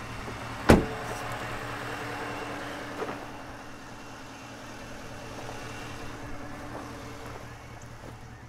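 A pickup truck door shuts with one sharp thump just under a second in. Underneath, the truck's engine, fitted with a MagnaFlow muffler, idles in a steady low hum.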